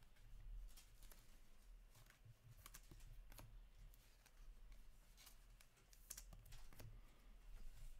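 Faint clicks and light rustles of hockey trading cards being handled and sorted one after another by hand, over a low steady hum.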